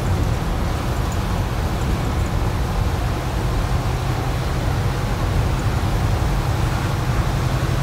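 Volvo tri-axle dump truck heard from inside its cab while driving: the diesel engine runs with a steady low drone under an even rumble of road noise.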